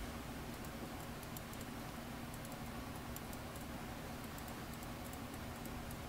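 Quiet steady hum with many faint, quick clicks of a computer mouse and keyboard.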